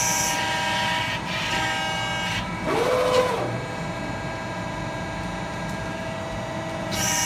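Servo-driven backgauge of a CNC hydraulic press brake traversing on its ball screw: a brief servo whine that rises and falls in pitch about three seconds in, over the machine's steady hum. Short high-pitched bursts come at the very start and again near the end.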